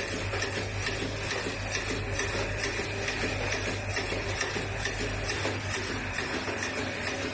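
Pearl and sequin attaching machine running, a steady rapid mechanical clatter over a low motor hum.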